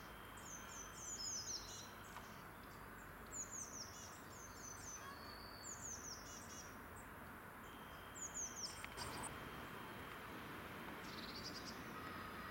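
Small songbirds singing: short phrases of quick, high notes that slide downward, about five phrases spaced a few seconds apart, over a steady background hiss.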